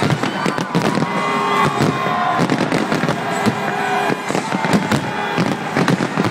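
Fireworks display at full intensity: a dense, continuous barrage of aerial shells bursting, many bangs overlapping with no gap, with a few steady tones sounding underneath.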